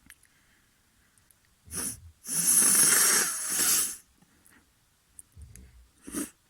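A person's loud rasping breath close to the microphone: a short breath, then a long noisy blow lasting under two seconds, and another short breath near the end.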